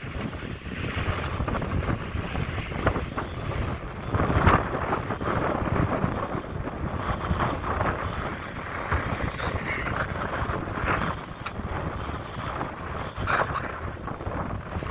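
Steady rushing noise of a fire hose putting water on a burning van, with irregular surges and wind buffeting the microphone.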